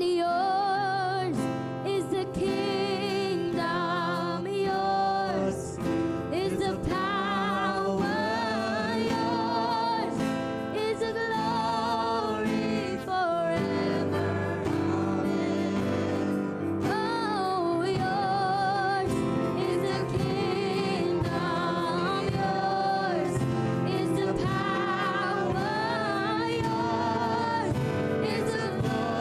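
Live gospel worship song: several voices singing together with vibrato over a steady instrumental accompaniment.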